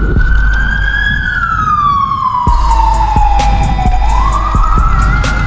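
Police siren on a slow wail: the pitch rises, falls slowly over about three seconds, then rises again near the end, over a low rumble.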